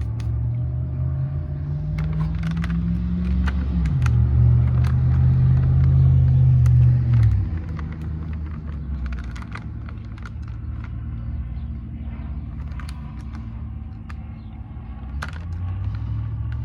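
Car engine accelerating: its pitch climbs, drops suddenly about four seconds in as it shifts gear, pulls strongly again, then eases off about seven seconds in to a steadier running hum. Faint scattered clicks sound above it.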